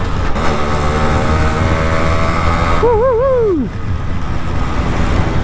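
Yamaha RX100's 98 cc single-cylinder two-stroke engine running at speed under heavy wind noise. About three seconds in its note wavers up and down, then drops away.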